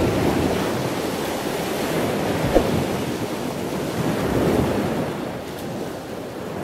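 Rushing noise of sea waves and wind, swelling and easing, with one short knock about two and a half seconds in.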